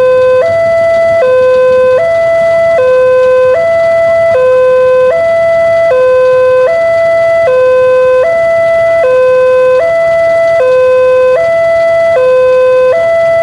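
Railway level-crossing warning alarm from the horn loudspeaker on the crossing post: an electronic two-tone signal, a lower and a higher tone alternating about every three-quarters of a second, warning of an approaching train.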